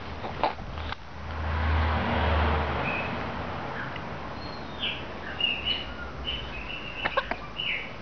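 Birds chirping outdoors in short, high calls, several sliding downward, through the second half. Before the calls, in the first few seconds, a broad rushing noise with a low hum swells and fades. A few sharp clicks come near the start and near the end.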